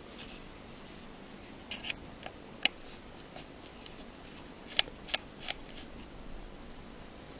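A few small, sharp clicks and taps from hand tools working on the small parts of a disassembled iPhone 5: two close together, one more, then a run of three.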